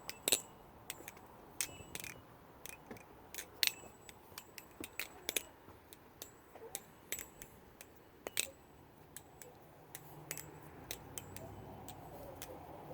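Balisong (butterfly knife) being flipped: quick, irregular metal clicks and clacks as the handles swing round and knock against the blade and pins, some with a short bright ring.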